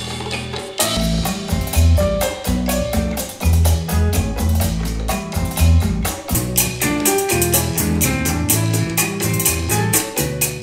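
Instrumental music with drums, played through loudspeakers and picked up by a microphone in the room. For about the first second it comes from an AUKEY SK-M12 Bluetooth speaker. Then it switches to hi-fi studio tower speakers, with much deeper, fuller bass.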